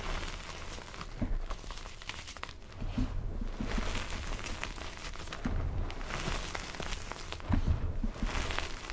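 Crumbled gym chalk scooped by hand and poured back through the fingers: a soft sifting hiss that swells in repeated waves, dotted with small crunches and crackles of breaking chunks.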